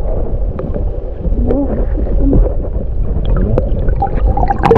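River water heard through a submerged camera microphone: a muffled rushing and gurgling of the current with a deep rumble and a few wavering, muffled tones, and a sharp knock near the end.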